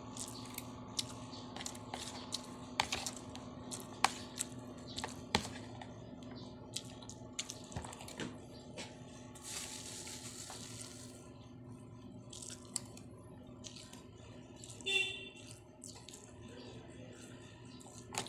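Eating sounds: a metal spoon and fork clicking and scraping against a plastic tub and rustling a plastic bag of noodles, with chewing, over a steady low hum. A brief high-pitched sound stands out about fifteen seconds in.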